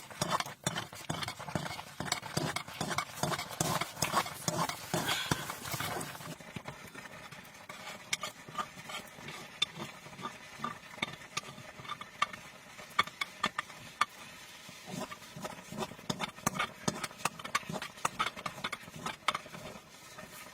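Irregular knocks and clicks. For the first six seconds they come thick over a hiss, then they thin out to scattered knocks.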